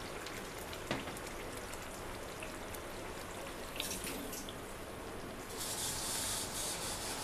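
Fish curry in a pan, just thinned with half a glass of water, simmering with a steady bubbling hiss. A silicone spatula stirs it from about four seconds in, scraping the pan, and the hiss turns brighter for a second or so near the end.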